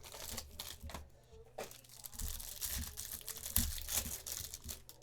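Plastic trading-card pack wrapper being torn open and crinkled, with scattered sharp clicks from handling.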